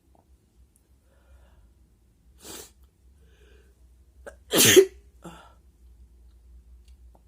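A man with hay fever sneezing, the sneezes brought on by tickling his nose with paper. There is a shorter, quieter breathy burst about two and a half seconds in, then one loud sneeze just before five seconds in.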